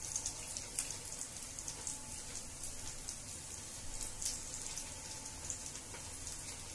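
Fresh corn batter frying on a non-stick pan in mustard oil and butter: a steady sizzle with scattered small crackles.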